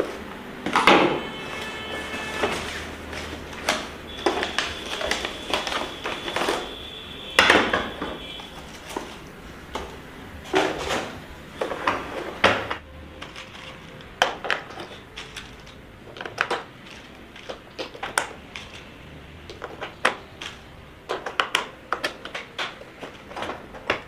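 Handling noises from unboxing a plastic toy bus. A cardboard box and its packaging scrape and rustle, and the plastic bus clicks and knocks against a wooden table in irregular short knocks.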